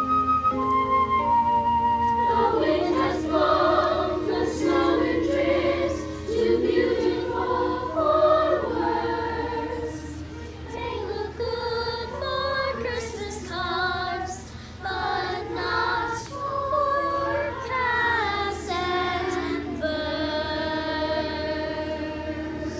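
Music with a choir singing a melody, settling into a long held chord near the end.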